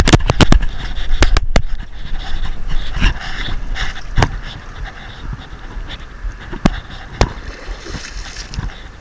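A run of sharp knocks and clicks at the start, then steady wind-and-water noise with a few scattered clicks. Near the end a hooked striped bass splashes and thrashes at the surface in shallow water as it is brought to hand.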